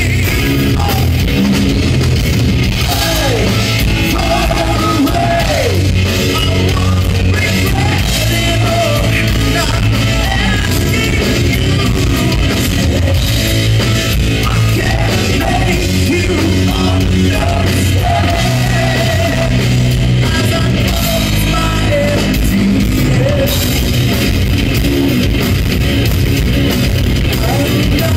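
Progressive metal band playing live: distorted electric guitars, bass and drum kit under a sung lead vocal, loud and heavy in the low end.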